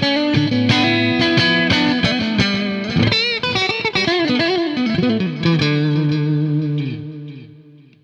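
Stratocaster-style electric guitar with Kins Pickup copies of DiMarzio Cruiser rail pickups, played as a lead line. Quick picked notes give way to notes that bend and waver in pitch. It ends on a held note that rings out and fades away near the end.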